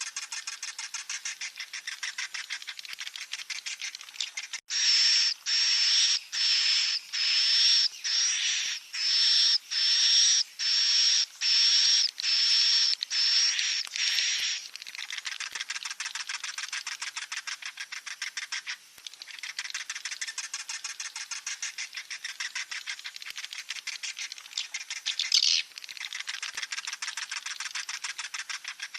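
Swiftlet chicks calling: a fast, rattling high chatter. From about five seconds in, roughly ten louder, shrill cries come about once a second, and then the chatter takes over again.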